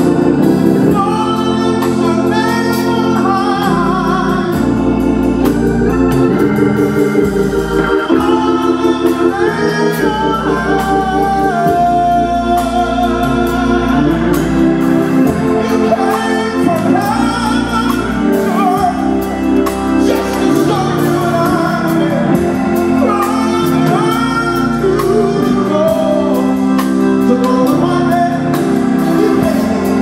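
Live gospel music: a Hammond organ playing sustained chords with a drum kit, and a man singing lead over them.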